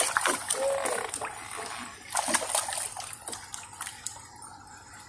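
Water splashing and lapping, with scattered small clicks and knocks; louder at the start and again about two seconds in, then settling lower.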